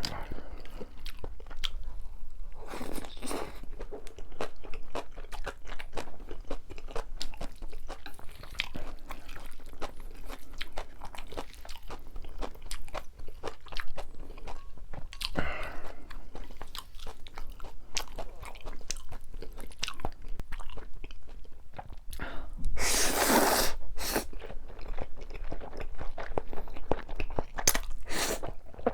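Close-miked eating: steady chewing and crunching of Chapagetti noodles and green onion kimchi, with a few longer, louder rushes of noise, the loudest about two-thirds of the way through.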